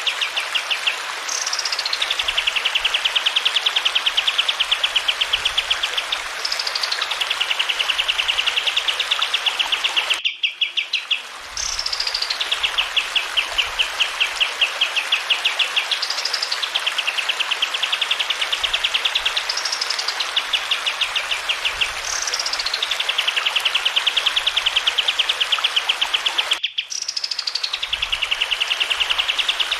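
Kapas tembak singing one repeated phrase about every five seconds: a high note sweeping down into a rapid rolling trill lasting several seconds. Running water hisses steadily underneath. The sound cuts out briefly twice.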